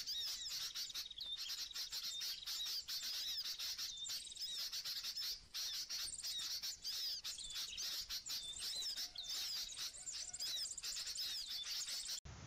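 Dense chorus of small birds chirping and twittering without pause, many short rising and falling calls with quick clicky trills; it cuts off abruptly near the end.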